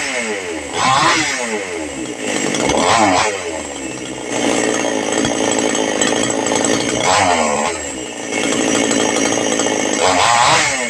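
Chainsaw engine being revved up and let fall back several times, with one longer stretch held at high speed in the middle. The owner complains that the saw has no power.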